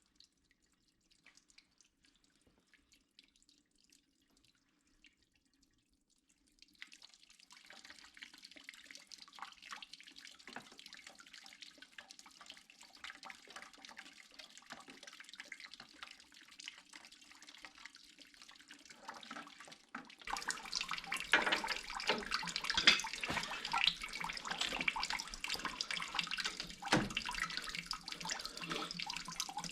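Water running and splashing: near silence for the first several seconds, then a faint hiss of flowing water from about seven seconds in that grows much louder about twenty seconds in, with scattered knocks and clicks.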